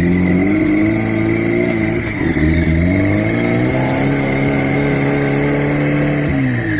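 Off-road 4x4's engine revving under load. The pitch rises and falls a couple of times, is held high for several seconds, then drops off near the end, with a steady high whine alongside.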